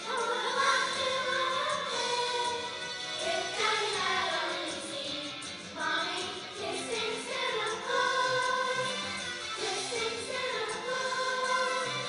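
Middle school choir of young voices singing a holiday song together.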